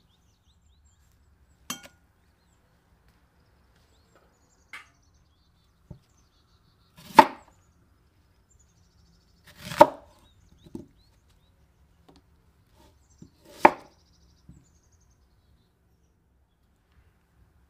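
A large knife slicing through a red onion onto a wooden cutting board: three loud, sharp chops a few seconds apart, with a few lighter taps and clicks between them.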